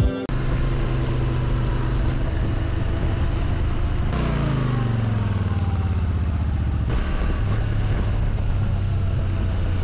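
Motorcycle engine running while riding, with steady road noise. About four seconds in the revs drop away in a falling pitch, then settle to a steady lower note.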